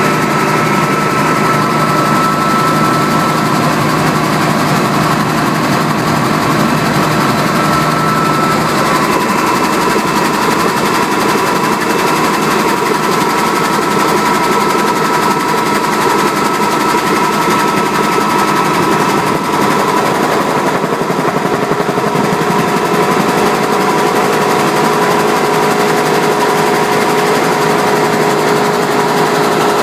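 Cabin noise of the original Batcopter, a Bell 47 piston-engined helicopter, in level flight: engine and rotor running steadily with a rapid, even chop, and a few steady whining tones over it.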